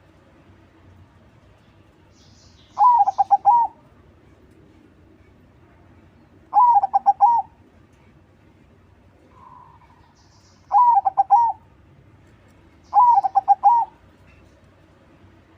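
Zebra dove (perkutut) of crossbred stock cooing. There are four loud phrases a few seconds apart, each a quick rolling run of notes lasting about a second, with a faint short call between the second and third.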